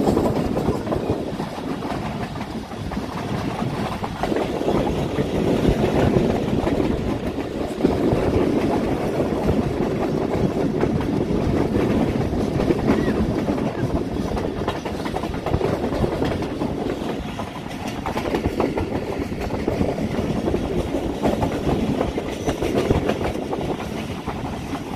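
Awam Express passenger train running at speed, heard from inside a carriage: a steady rumble of wheels on the rails with a dense, rapid clatter and no let-up.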